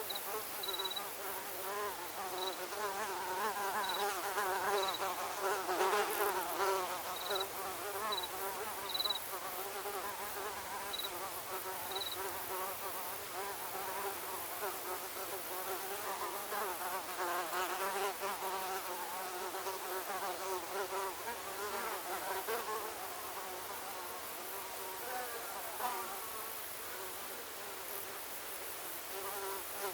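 Many mosquitoes whining at once: wavering buzzing whines that overlap in a dense, steady drone. Short, high chirps sound now and then during the first half.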